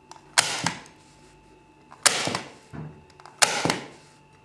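Staple gun firing three staples through fabric into softboard, about one every one and a half seconds. Each shot is a sharp snap with a second click a quarter second after it.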